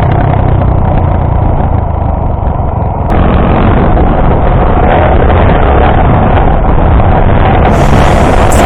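Honda XR250 Tornado's single-cylinder four-stroke engine running during an enduro ride, loud and steady, with an abrupt shift in the sound about three seconds in.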